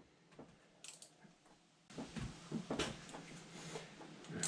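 Faint scattered clicks and light clatter of hand tools and engine parts being handled, busier from about two seconds in.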